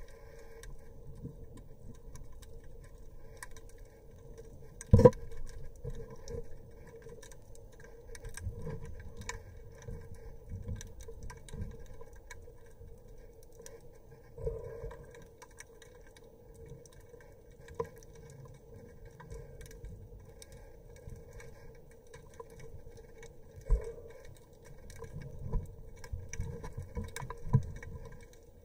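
Underwater sound picked up through a camera's housing: a steady hum with low rumbling water movement and scattered faint clicks, and a single sharp knock about five seconds in.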